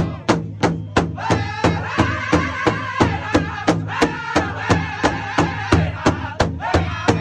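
Powwow big drum with a hide head struck in unison by several drummers in a steady beat, about three strokes a second, with the drum group singing together over it, starting about a second in and breaking off briefly near the end.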